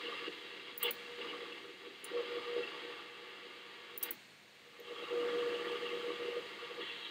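Shortwave receiver in AM mode giving static and hiss with a faint steady tone, broken by sharp clicks about one, two and four seconds in as it is stepped from one listed frequency to the next. No station is coming through yet, only band noise.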